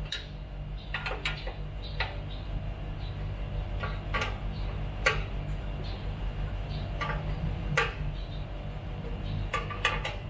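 Sharp metallic clicks and clinks, about ten scattered through, from a hex key and bolts knocking against the metal base plate of a TV floor stand as the bolts are screwed in.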